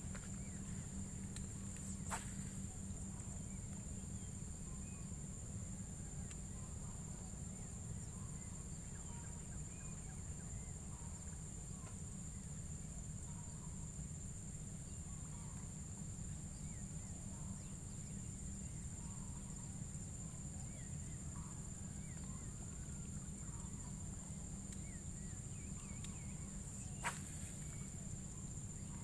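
Steady high-pitched drone of insects over a low outdoor rumble, with faint scattered chirps. Two sharp clicks stand out, one about two seconds in and one near the end.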